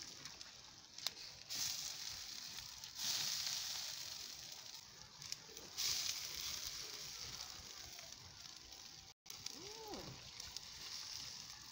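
Water flicked by hand onto catfish drying on a wire tray over a charcoal fire, hissing and sizzling as the drops hit the hot fish and tray. The hiss surges suddenly about three seconds in and again about six seconds in, fading each time.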